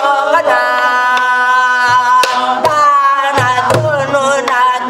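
Korean traditional (gugak) singing: one voice holding long, slightly wavering notes over drum strokes, with a deeper thump of the drum about three and a half seconds in.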